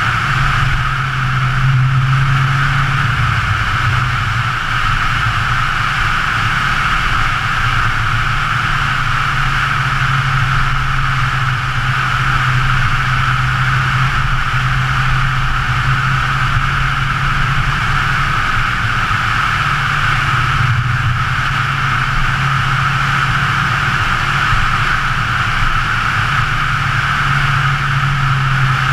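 2013 Scion FR-S's flat-four engine running at a steady cruise, its low note shifting only slightly, under a constant hiss of wind and road noise.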